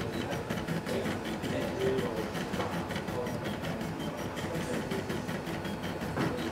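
AxiDraw pen plotter's stepper motors whirring in a rapid run of short spurts that keep shifting in pitch as the pen traces a jagged random-walk line.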